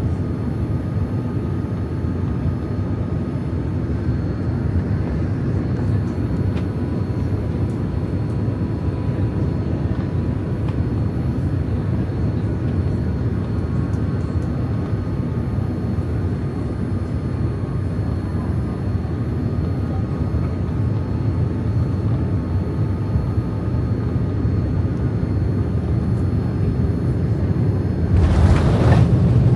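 Boeing 787-9 airliner heard from inside the cabin: a steady rumble of engines and airflow, with two short, louder rushing surges near the end.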